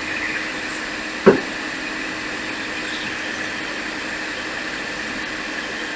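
Hot air rework station blowing with a steady hiss. A single short, loud knock comes about a second in.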